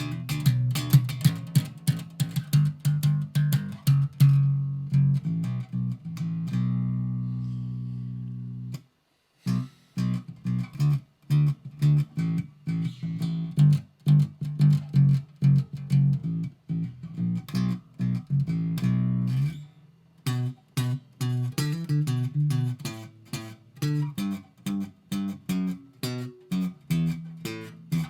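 Instrumental music of plucked guitar over a bass line, in a steady run of short notes. A chord rings out about six seconds in, and the music drops out briefly about nine seconds in before picking up again.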